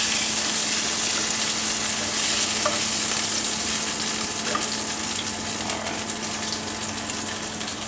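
Leftover vegetable oil and butter sizzling in a frying pan on the stove, a steady hiss that slowly dies down.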